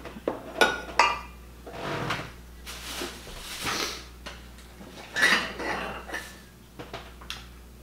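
Hand-painted china cups and plates clinking and knocking against each other as they are handled and lifted out of a box: several sharp clinks with some scraping in between.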